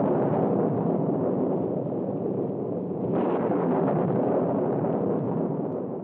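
A cinematic rumbling sound effect like a long explosion, with a second surge about three seconds in, dying away at the end.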